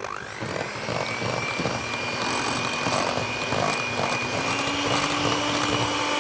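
Moulinex electric hand mixer starting up and running steadily, its wire beaters whisking a batter in a glass bowl. The motor whines as it comes up to speed at the start, then holds a steady high whine over a lower hum that rises slightly in pitch about four seconds in.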